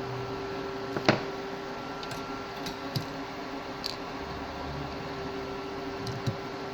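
Steady mechanical hum of a workbench fan, with a few light clicks and taps of tools on the circuit board, the sharpest about a second in.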